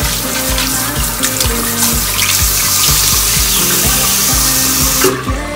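Tap water running into a bathroom washbasin, splashing over a cloth pad as it is rinsed and squeezed by hand; the water cuts off suddenly about five seconds in. Background music with a steady beat plays throughout.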